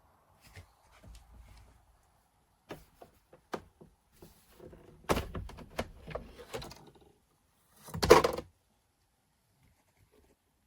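A series of light clicks and knocks, then one louder thunk about eight seconds in.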